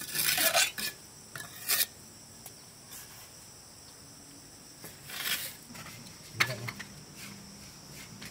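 A few short rasping scrapes of something hard being rubbed or scraped, the loudest right at the start and another about five seconds in, over a faint steady high-pitched hum.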